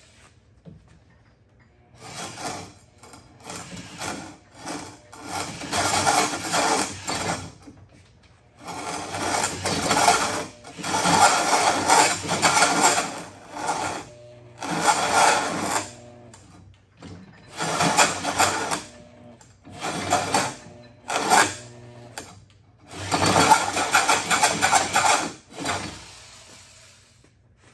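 Corded drill driving a tenon-cutter bit into the end of a log, shaving wood to form a round tenon. It runs in repeated stop-start bursts of one to three seconds, as the bit is worked onto a log slightly too big for it.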